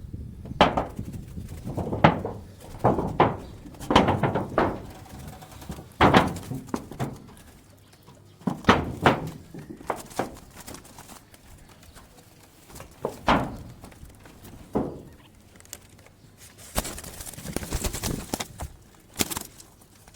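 Irregular knocks and thuds from a bird trap being handled and adjusted, some coming in quick clusters, with a rustling hiss near the end.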